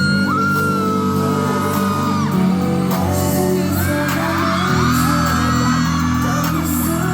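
Live K-pop music playing loudly through an arena sound system, with singing and fans screaming and cheering over it.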